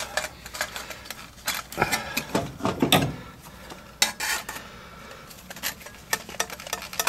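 Irregular clicks and light metallic clinks of wires and spade connectors being handled on a furnace control board inside the sheet-metal cabinet.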